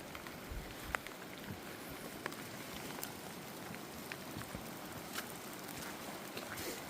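Steady rain hissing, with scattered sharp ticks of drops landing close by.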